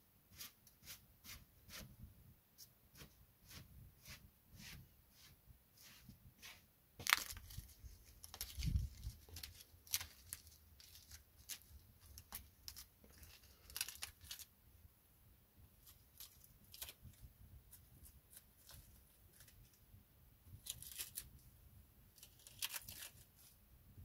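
Dry leaves and bark debris being pulled and crumpled by hand: a run of short crackles and tearing rustles, with a few louder crunches.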